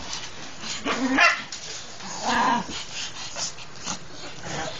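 Japanese Chin dogs play-fighting, giving short yappy barks, the loudest about one second and two and a half seconds in.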